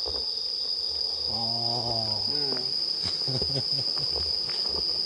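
A steady, unbroken high-pitched chorus of night insects, with a man's drawn-out 'aah' about a second in and a few soft footsteps after it.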